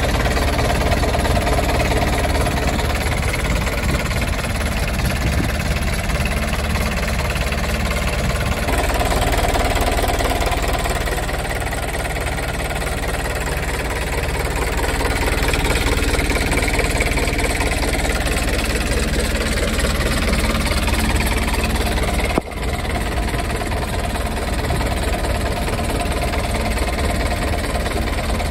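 Isuzu 100 hp marine diesel engine running steadily, heard close up in the open engine compartment. A single click about 22 seconds in, followed by a short dip in level.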